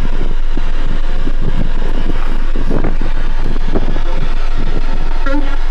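Wind buffeting the microphone: irregular low rumbling gusts over a steady low hum.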